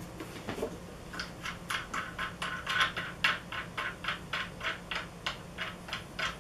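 Screws on a wooden jig being loosened with a hand screwdriver: a steady run of sharp clicks, about three or four a second, starting about a second in. A faint steady hum lies underneath.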